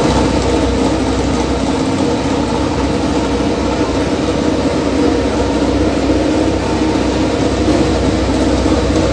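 Ducati MotoGP race bike's engine idling steadily on its paddock stands, a loud even drone with no revving.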